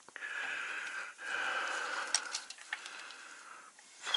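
Compressed air hissing at a truck air line's push-in quick-disconnect fitting, in two spells of about a second each, with a few light clicks from the fitting during the second.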